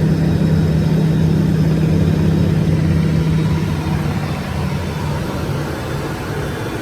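Learjet 60XR's twin turbofans at takeoff power, heard from the cabin during the takeoff roll, with a steady low rumble that eases off in the second half.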